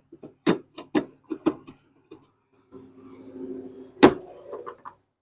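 Kerosene heater parts being handled during cleaning: a run of light clicks and knocks, then a rubbing sound ending in one loud sharp knock about four seconds in, followed by a few small clicks.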